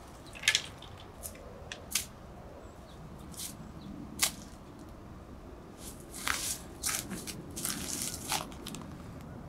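Footsteps crunching and rustling through dry pine needles and fallen leaves, in scattered sharp crackles that thicken into steady rustling for a couple of seconds near the end.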